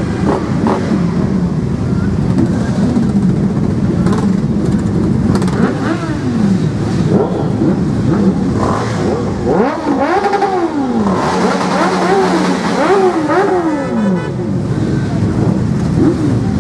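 Many motorcycles riding slowly past in a column, their engines running together with riders blipping the throttle. Several engines rev up and fall back again and again from about ten to fourteen seconds in.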